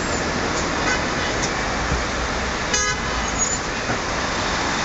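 Steady city street traffic noise with one short vehicle horn toot nearly three seconds in.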